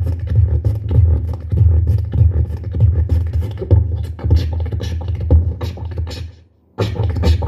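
Vocal beatboxing: a fast rhythm of mouth clicks and percussive strokes over a steady deep bass hum. It breaks off briefly about six and a half seconds in, then starts again.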